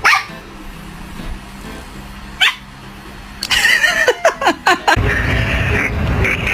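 Dog barking and yelping in short falling calls, a quick run of them about three and a half seconds in, followed by a steady rushing noise from about five seconds in.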